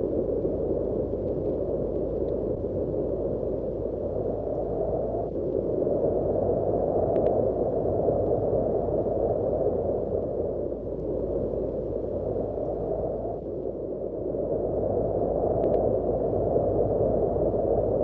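Low, rushing wind noise that never stops, swelling and easing in slow gusts every few seconds.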